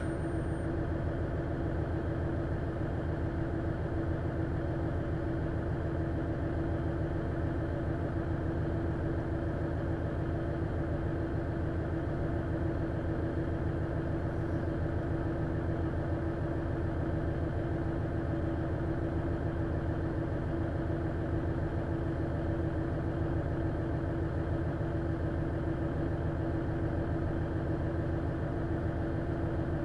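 KiHa 110 diesel railcar's DMF14HZA engine idling steadily while the railcar stands still, heard from inside the passenger cabin, with a steady hum.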